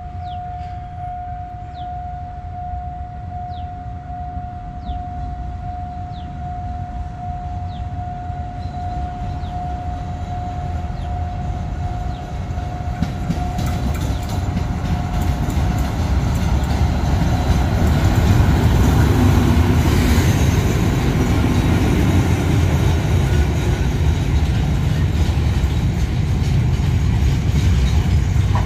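Alsthom diesel-electric locomotive 4118 approaching and passing with a train of freight wagons: a deep engine and wheel rumble grows louder from about halfway and stays loud to the end, with wheels clacking over the rail joints. A steady high tone sounds through the first half and stops about halfway.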